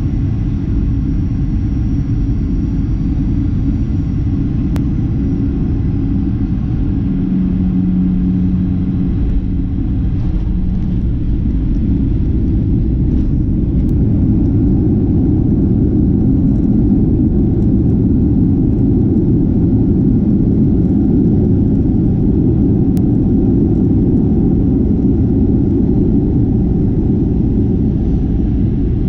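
Cabin noise of a Boeing 737-800 rolling out on a wet runway after landing and slowing to taxi: a steady low rumble of its CFM56 engines, wheels and airflow, growing louder about halfway through.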